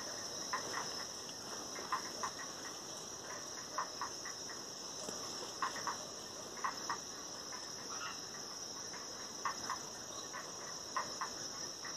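Night insect chorus: a steady high-pitched shrill of crickets, with short clicking chirps, mostly in pairs, every second or two.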